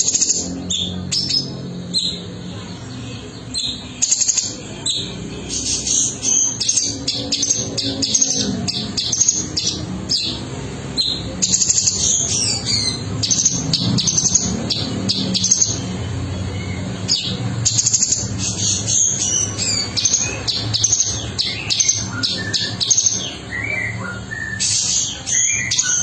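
Orange-bellied leafbird singing a fast, continuous song of high chirps and trills, with a few short lower whistled notes near the end.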